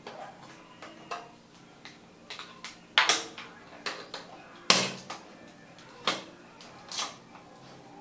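Flat screwdriver prying and scraping at a plastic light-switch cover plate to pop it off the wall: a series of sharp clicks and scrapes, loudest about three and about five seconds in.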